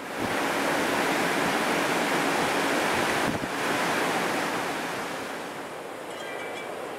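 Snowstorm wind blowing hard and buffeting the microphone in a steady rush, easing somewhat about five seconds in.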